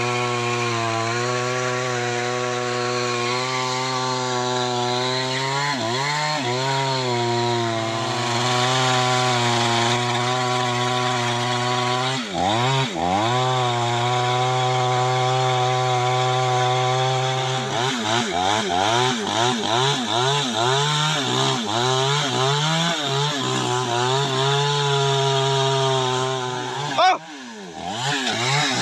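Two-stroke chainsaw running at high revs as it cuts into the base of a large tree trunk. Its pitch dips and recovers twice as the chain loads up in the wood. From about two-thirds through, the engine note wavers rapidly up and down, and shortly before the end it drops sharply for a moment, then picks back up.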